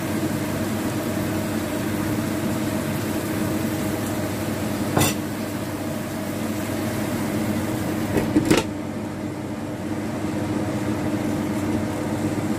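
Steady mechanical hum with greens steaming and hissing in a wok. A single knock about five seconds in, then a short clatter a little past eight seconds as a glass lid goes onto the wok, after which the hiss is duller.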